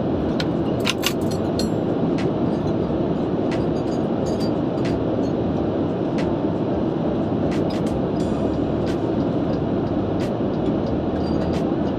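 Steady in-flight cabin noise of a Boeing 787-9 airliner, a constant rumble and rush, with scattered light clicks and clinks of cutlery and dishes on a meal tray, several close together about a second in.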